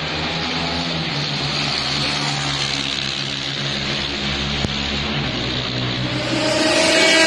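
A motor vehicle engine running steadily, rising in pitch near the end.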